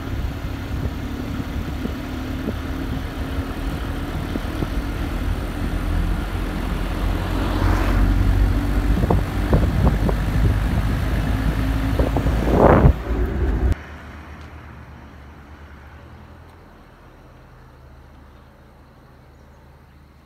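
Road vehicle driving, with a steady low engine and road rumble that swells a little past the middle. It cuts off suddenly about two-thirds of the way in, leaving only a faint low hum.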